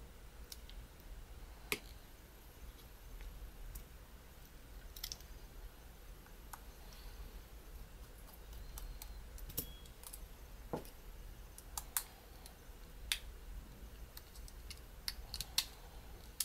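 Irregular small clicks and taps, about a dozen, as a Panasonic DMC-TS30 compact camera is taken apart with a small screwdriver and tweezers, the metal tools knocking on the camera's case.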